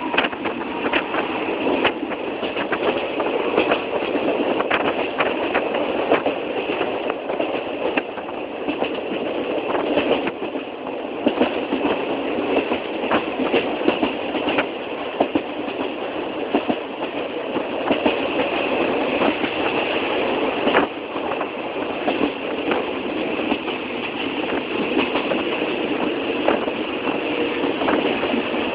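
An old passenger train running, its carriage clattering and rattling continuously with frequent sharp clicks and knocks.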